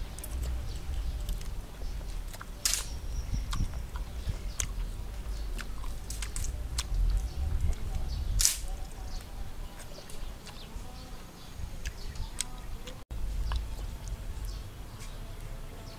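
A person eating by hand: chewing, smacking and biting, heard as many short sharp clicks, with two louder ones about three seconds in and near the middle, over a low rumble.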